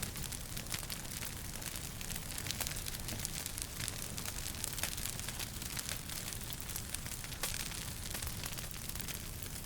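Wood fire crackling in a fireplace: a constant scatter of small sharp pops and snaps over a low steady rumble.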